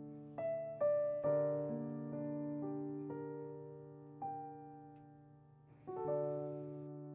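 Background music: a solo piano playing slow, gentle notes that ring and fade, a few struck together roughly once a second.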